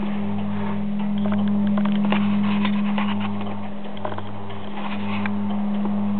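Church bells in a wooden belfry with no clear strikes. A steady low bell hum dominates. A deeper hum pulses on and off about once a second, and scattered light clicks and rattles come from the bells' fittings and frame.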